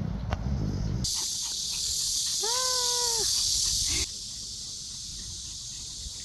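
A steady, high insect drone, with one drawn-out animal call about two and a half seconds in that rises slightly and falls at its end. The drone drops in level suddenly about four seconds in.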